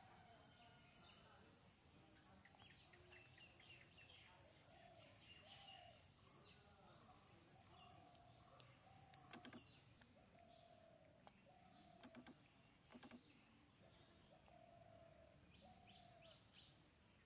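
Faint woodland ambience: a steady high-pitched insect chorus, with a short call repeating about once a second. A few soft crunches of crispy french fries being bitten come around the middle.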